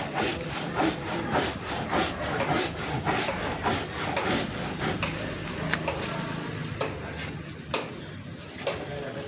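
Hand saw cutting through tree wood in quick rhythmic strokes, about two or three a second, slowing to about one stroke a second in the second half.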